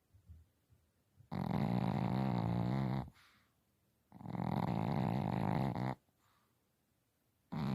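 A sleeping pet snoring: long, even snores about every three seconds, each lasting nearly two seconds, with quiet pauses between; the third begins near the end.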